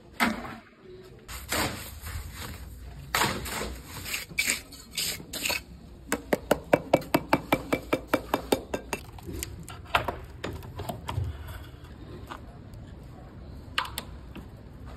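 Scrapes and knocks of masonry hand tools, a trowel and shovel, working wet concrete, with a quick even run of about seven taps a second in the middle.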